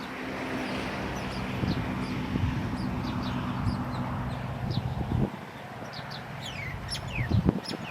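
Small birds chirping, with short high notes and a few quick falling whistles. Under them is a steady low hum that cuts off suddenly about five seconds in.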